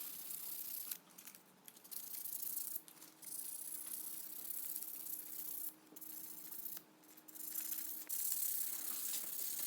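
Sandpaper rubbed by hand over a knife handle, a scratchy hiss in spells of one to three seconds broken by short pauses.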